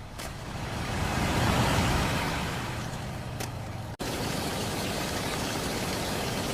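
A truck drives by, its engine and road noise swelling to a peak about a second and a half in and then easing off. Near four seconds it cuts off abruptly and gives way to a steady, even noise.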